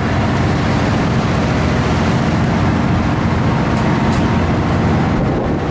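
A small roll-on roll-off car ferry's engine running steadily under way, a low drone mixed with the rush of wind and water.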